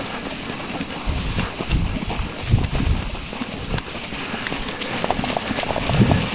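A dog sled running over snow behind a team of Siberian huskies: a steady scraping rush from the runners with the dogs' irregular footfalls. There is a jolt near the end as the sled tips over.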